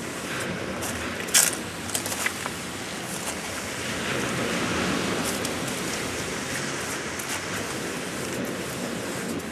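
Surf washing on a beach, a steady noise that swells about four seconds in. A sharp click comes about a second and a half in, followed by a few smaller rattles.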